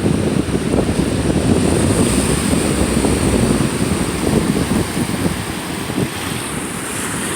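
Wind buffeting the microphone in a dense low rush, with ocean surf washing at the shoreline underneath.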